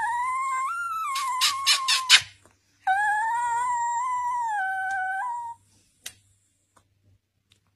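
Small dog howling: two long howls, the second starting after a short pause, each holding a fairly steady high pitch.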